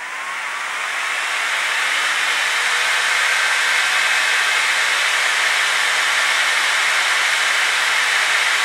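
Webasto Air Top heater's combustion air fan spinning up to 5000 rpm on a bench test and then running steadily with a loud rushing whir. It rises over the first second or two before holding level.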